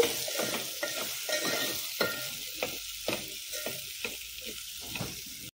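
A spatula stirring and scraping chopped hyacinth bean pods and potato in a metal pot, with irregular scrapes and taps over a steady sizzle of frying in oil. It breaks off abruptly near the end.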